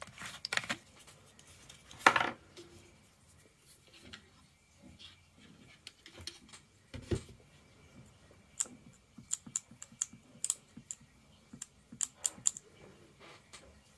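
Scattered small clicks and taps of hard plastic parts being handled, with a short louder rustle about two seconds in and a dull thump about seven seconds in.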